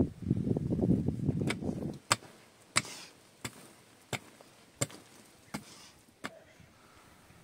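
A loud, rough rumbling noise for about two seconds, then a pickaxe striking stony ground: seven sharp, evenly spaced strikes a little under a second apart.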